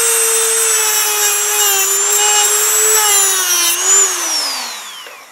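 Dremel rotary tool with a cut-off wheel running at a steady high whine while it cuts slots in a pulley's circlip. Its pitch sags and wavers under the cutting load, then it is switched off about four seconds in and winds down to a stop.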